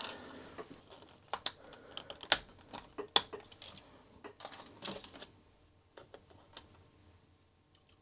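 Irregular plastic clicks and clacks as keycaps and key springs are pulled off a Commodore Amiga 1200 keyboard.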